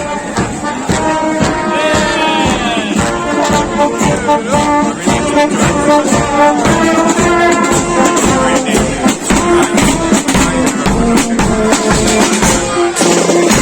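Brass band playing a tune with trumpets and trombones over steady drum and percussion beats.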